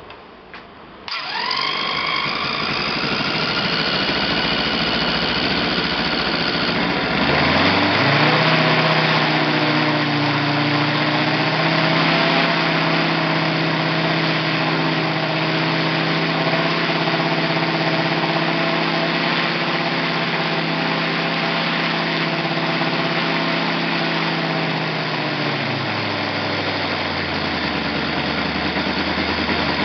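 Saito FA-325 R5 five-cylinder four-stroke glow radial model engine running on the test bench, just after a cold-weather start. Its pitch rises about a second in and climbs to a higher steady speed around seven seconds in. It holds there, then drops back to a lower speed near the end.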